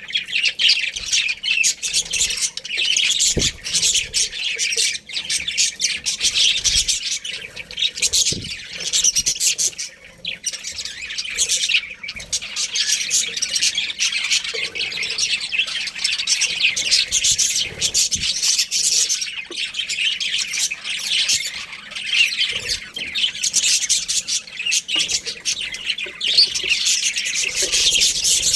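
Budgerigars chirping and chattering nonstop, many rapid high calls overlapping, with only brief lulls.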